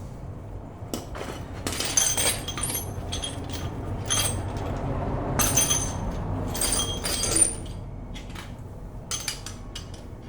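Metal hand tools clinking, knocking and clicking against steel suspension parts as a strut assembly is handled, with short ringing metallic chinks.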